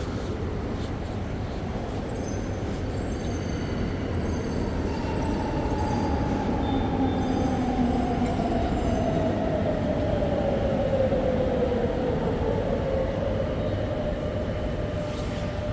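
Madrid Metro train running with a steady low rumble; from about five seconds in a whine glides steadily down in pitch over several seconds.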